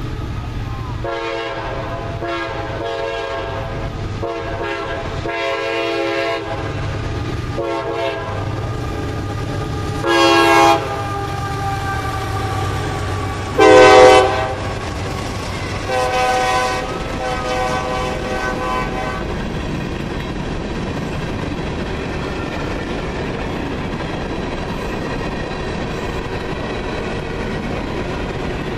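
A CSX freight locomotive's air horn sounds a string of blasts for the grade crossing. The horn grows loud with three blasts at about ten, fourteen and sixteen seconds in, the one at fourteen the loudest and the last one longer. For the last ten seconds the horn is silent and the freight cars roll past with a steady rumble of wheels on the rails.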